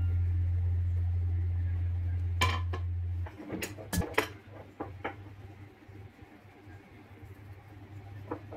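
A few sharp clinks and taps of a metal spoon against a cooking pot, most of them about four seconds in. A low steady hum runs under the first three seconds and cuts off.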